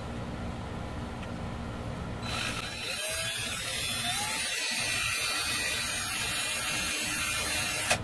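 Cordless drill with a tiny drill bit running, boring a pilot hole for a strap button into the guitar body's glued-up screw hole. It starts about two seconds in, runs steadily for about six seconds and ends with a sharp click near the end.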